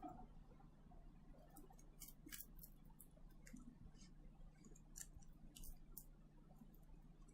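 Near silence with a steady low hum and scattered faint clicks and ticks from small hand work on an opened smartphone, where the old flex cable is being gently peeled back.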